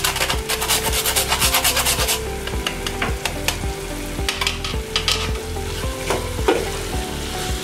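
Nutmeg rasped on a small metal hand grater in quick strokes for about the first two seconds, then a spatula stirring and scraping the sticky coconut-and-jaggery filling around a pan on low heat.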